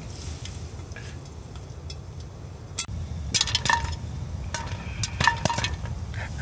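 Popcorn kernels starting to pop inside a lidded metal camping pot heated by a Trangia spirit burner: sharp pops that ping off the pot and lid, beginning about three seconds in and coming in quick clusters, over a low steady rumble.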